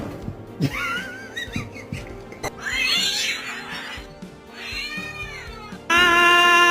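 A cat meowing three times, each a drawn-out call wavering in pitch, the last one rising and falling, over faint music. Louder music comes in suddenly near the end.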